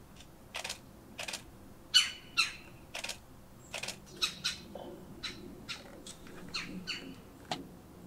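Red-bellied woodpecker calling: a string of short, sharp calls, irregularly spaced, some in quick pairs.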